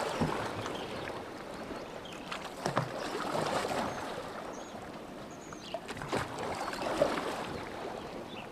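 Oars dipping and splashing in lake water on a rowing boat, a stroke about every three seconds, with a few small knocks.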